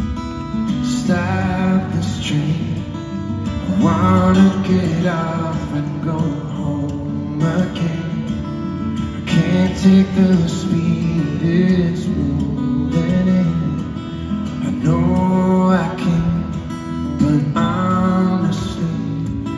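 Live solo acoustic guitar with a man singing over it into a microphone, amplified in a large arena. Sung phrases come and go in short lines over the steady guitar.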